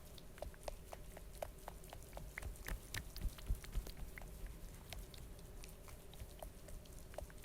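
A played-back Foley sound effect of faint, irregular wet clicking and smacking, about two or three clicks a second, with a few louder smacks about three seconds in. It is offered as a rolled-up carpet being dragged down a flight of stairs with a dachshund yapping in the background.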